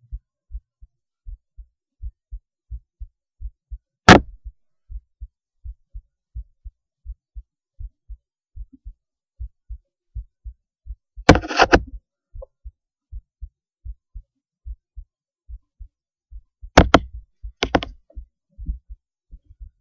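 Human heartbeat heard through a cheap acoustic stethoscope: a steady, even run of dull low thumps, about two or three a second. Three loud scraping knocks cut in, about four, eleven and seventeen seconds in.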